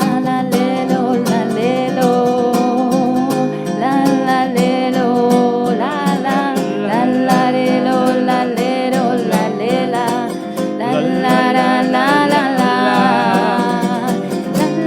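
Live bolero played on acoustic guitars: steady strummed chords with a gliding melody line over them, in an instrumental passage between sung verses.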